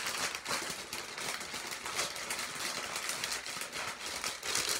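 Plastic MRE heater bag and meal pouch crinkling and rustling in the hands, a dense run of small irregular crackles, as the pouch is pushed into the flameless ration heater after water has been added.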